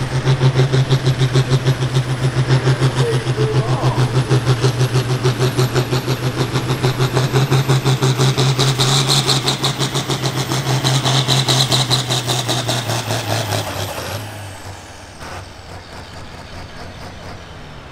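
Farm stock diesel tractor engine running hard under load with a steady, rapidly pulsing note. About fourteen seconds in it drops in pitch and eases off, leaving a faint high whine falling away.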